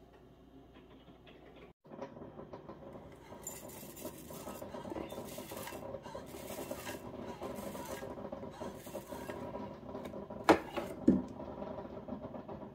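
Rolled oats rustling and pattering as they pour from an OXO cereal dispenser into a bowl, starting about two seconds in, with two sharp knocks near the end.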